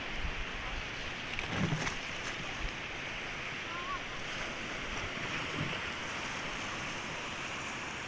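Sea waves washing onto a sandy beach, a steady surf, with some wind rumble on the microphone near the start and a few brief knocks about two seconds in.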